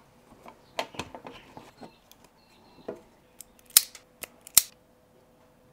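A handful of sharp plastic clicks and snips from a car door speaker's plastic mounting ring and the new woofer being handled and trimmed to fit. The two loudest come a little past halfway.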